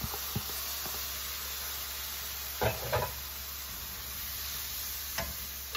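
Chicken and its cooking liquid sizzling steadily in a hot skillet of vegetables, with a few short knocks of a silicone spatula against the pan and container about halfway through and again near the end.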